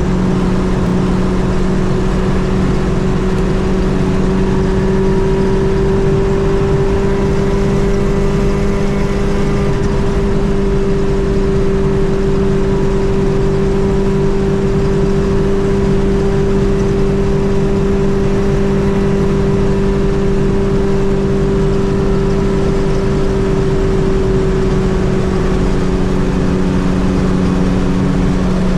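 Fiat 600 with a swapped-in 1.6-litre Fiat 128-family four-cylinder engine cruising at steady motorway speed, its engine note holding an almost constant pitch over continuous road noise.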